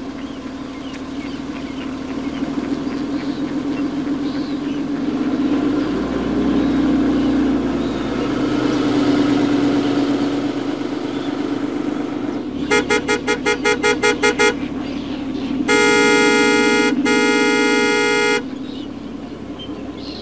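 A motor vehicle's engine running low and steady, then its horn sounding: a rapid string of about ten short toots, followed a second later by two long blasts.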